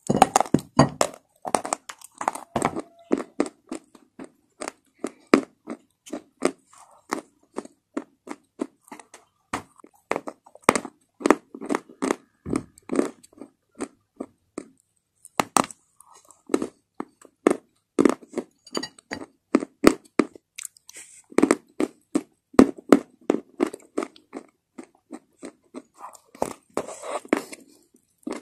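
Loud close-up crunching and chewing of chalk pieces dipped in wet clay: runs of sharp bites and crunches with short lulls between mouthfuls.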